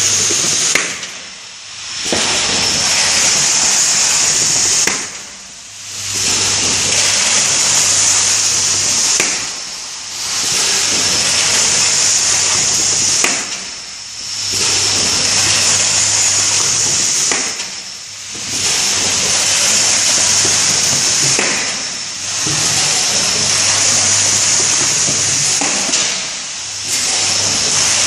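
Automatic carton erecting and bottom-sealing machine running through its cycle: a loud, steady pneumatic hiss over a low electrical hum. The hiss breaks off for about a second roughly every four seconds as each carton is opened, with a faint click or two around the breaks.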